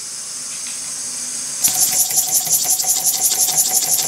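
Small single-acting model steam engine with an eccentric-driven spool valve, machined from aluminium bar stock, running on compressed air: about a second and a half in, a rapid, even chuffing of exhaust puffs starts, several a second, over a steady thin whistle.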